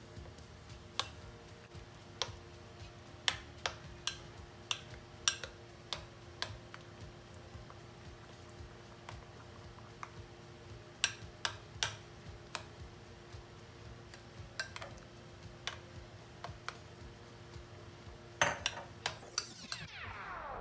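Metal spoon stirring a thick wheat-flour batter in a glass bowl, clinking against the glass in irregular taps, with a quick run of clinks near the end. A faint steady hum sits underneath.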